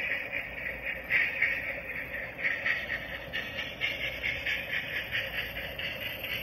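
Small model steam locomotive pulling a train of ore cars, its steam chuffing in rapid, even beats, several a second, over the running of the train.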